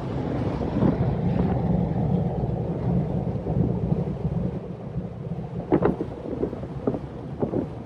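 Wind rushing and buffeting through the open Bestop Sunrider roof of a Jeep Gladiator's cab at about 70 mph, a low steady rumble with road noise under it, loudest in the first few seconds. A few short, sharp gusts hit near the end.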